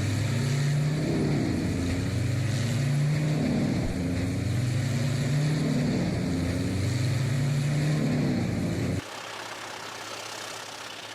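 Large diesel engine of a wood chipper or grinder running under load, its pitch dipping and recovering about every two seconds as it takes material. It cuts off abruptly about nine seconds in, giving way to a quieter steady hiss.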